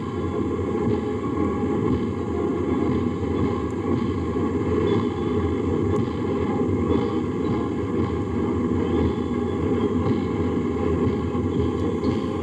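Steady, continuous rumble of military parade vehicles passing, heard on an old archival recording, with the sound mostly low and muffled.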